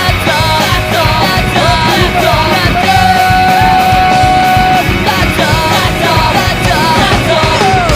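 Loud punk rock music with singing over a steady drum beat, cutting off abruptly at the very end.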